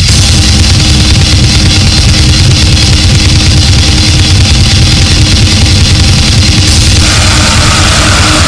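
Harsh noise music: a very loud, dense wall of distorted noise with a heavy low rumble and a faint steady tone under it. The texture shifts about seven seconds in, when a brighter hiss band comes in.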